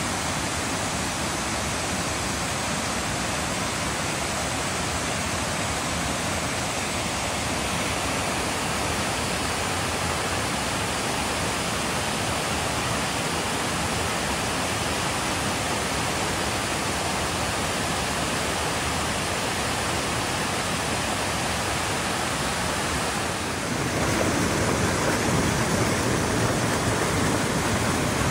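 Rushing water running steadily, growing a little louder and fuller near the end.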